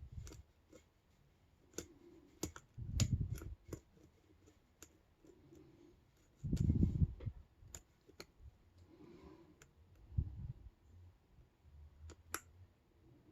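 Lock pick and tension wrench working the pins of a 5-pin Euro-profile cylinder lock: scattered small metallic clicks, with a few dull bumps from handling the lock.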